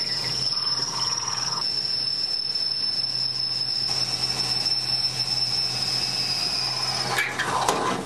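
Cordless drill running steadily as its bit bores into a wooden board, with a high whine. The whine stops about seven seconds in and is followed by a few knocks.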